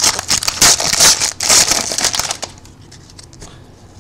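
Foil trading-card pack wrapper crinkling and tearing as it is ripped open and handled, a quick run of sharp rustles that dies down to faint handling about two and a half seconds in.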